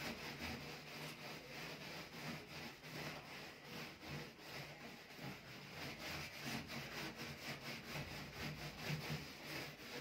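Steel wool scrubbing pad scrubbing a gas stove, a rasping sound in quick, even back-and-forth strokes.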